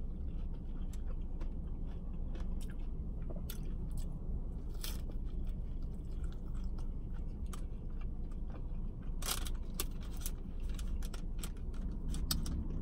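Close-up eating of a Jack in the Box taco: crunching and chewing of the crisp fried shell, in irregular bites, with the loudest crunches about five and nine seconds in.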